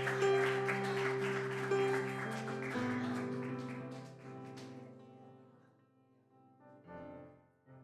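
Worship music on acoustic guitar: strummed chords over sustained low notes, dying away about five seconds in, with a brief sound near the end.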